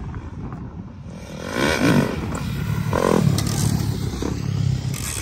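Small dirt bike engine revving up twice, about two and three seconds in, then running steadily.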